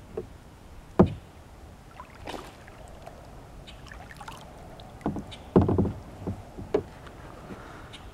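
Knocks and thumps on a plastic kayak hull as the angler moves in the boat: one sharp knock about a second in, then a cluster of knocks and rattles between about five and seven seconds in.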